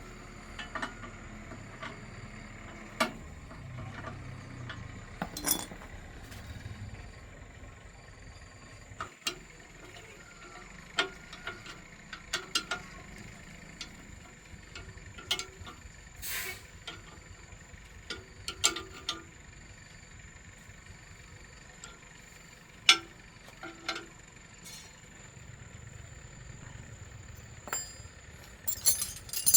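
Irregular metallic clinks, taps and knocks of hand tools and machine parts being handled during repair, the sharpest about two-thirds of the way through, over a faint steady high-pitched tone.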